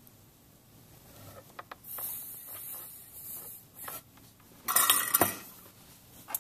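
Small metal clinks and rustles of wire and soldering tools being handled on a work surface, with a short hiss about two seconds in and the loudest cluster of clicks and rustling about five seconds in.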